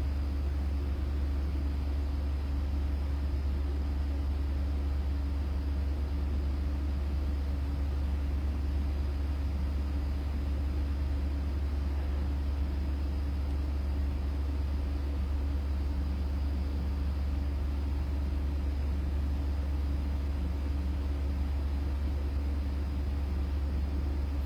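Steady low hum with a faint background hiss, unchanging throughout, with no clicks or other distinct events.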